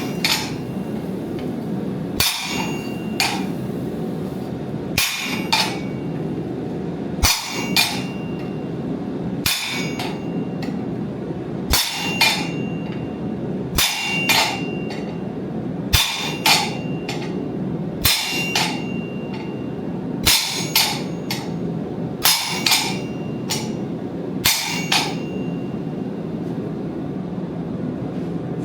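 A hammer strikes metal in an even rhythm: two blows about every two seconds, each pair leaving a short ringing tone, over a steady low rushing noise. The blows stop a few seconds before the end.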